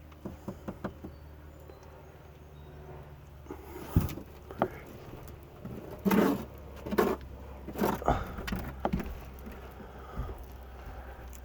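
Irregular knocks, clicks and scraping of handling work inside a fiberglass boat hull, a few light clicks at first and then several louder knocks and scrapes, over a steady low hum.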